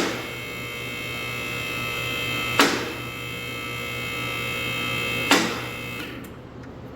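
Car lift's electric hydraulic pump motor running with a steady hum as it raises the car, with a sharp click about every two and a half seconds as the lift's safety locks catch. The motor stops about six seconds in.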